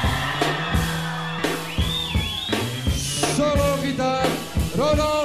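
Rock music with a steady drum kit beat and a singing voice.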